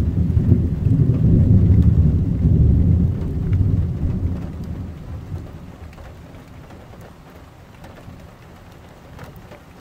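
Thunder rumbling: a deep rumble that comes on suddenly, is loudest for the first few seconds, then dies away slowly.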